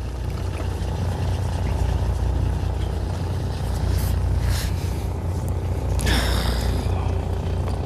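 Fishing boat's engine running with a steady low hum, and a brief rush of noise about six seconds in.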